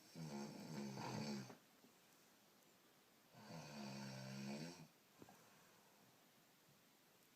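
A woman snoring: two long, pitched snores about three seconds apart, each lasting over a second, with quiet between them.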